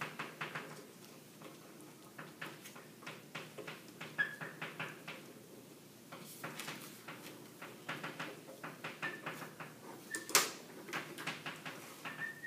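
Chalk tapping and scraping on a blackboard as a diagram is drawn: many short clicks, a few brief high squeaks, and one louder tap about ten seconds in.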